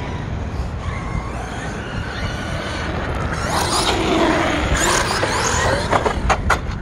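RC car's brushless electric motor whining, rising and falling in pitch as the car speeds close past on asphalt, over a steady low wind rumble on the microphone. A few sharp clicks come near the end.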